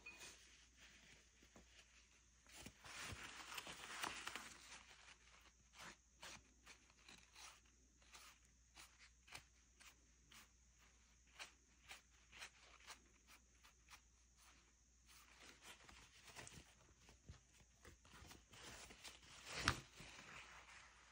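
Faint rustling and soft taps of a folded paper towel dabbing and rubbing across an acrylic painting, about one or two dabs a second, with one sharper knock near the end.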